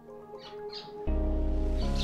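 Background music with a heavy bass line that comes in about a second in, over which short high bird chirps sound twice.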